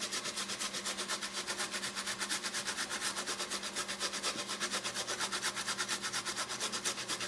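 Onion being grated on a metal box grater: a quick, even run of scraping strokes, several a second.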